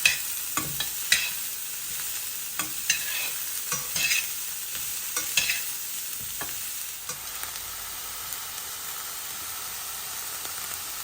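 Metal ladle scraping and clinking against the pan as chopped onions are stirred in hot oil, over a steady sizzle of frying. The stirring strokes stop about seven seconds in, leaving only the sizzle.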